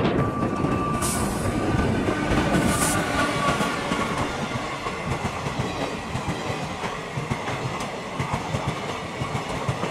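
WAP-4 electric locomotive and its passenger coaches passing at speed, the wheels clattering over the rail joints in a steady run of beats. A steady whine fades out after about four seconds, and the sound eases as the coaches go by.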